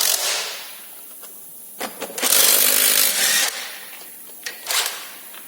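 Pneumatic impact wrench running in bursts on a tight wheel nut: a long burst of about a second and a half, then a shorter one near the end.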